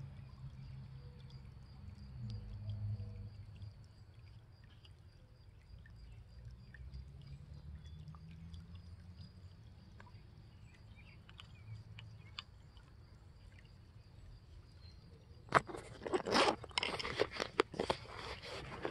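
Faint handling noise and small ticks as fishing line is worked by hand on a wooden hand reel. About three seconds from the end, loud crackling and rustling starts close to the microphone.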